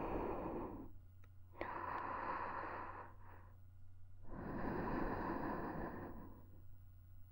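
Slow, airy breaths right at a KU100 binaural dummy-head microphone: one fades out about a second in, another runs from about one and a half to three seconds with a short one after it, and a longer one begins a little past four seconds. A couple of faint clicks sit near the start of the second breath.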